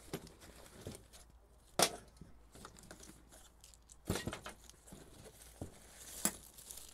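A fabric drawstring stuff sack rustling and crinkling as gear is pulled out of it. Three sharp knocks, about two, four and six seconds in, as items are set down on a plastic folding table.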